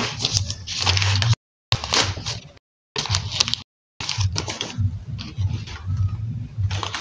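Newspaper and plastic wrapping rustling and crinkling as it is pulled off a framed picture. The sound cuts to dead silence abruptly three times, with a low pulsing hum underneath.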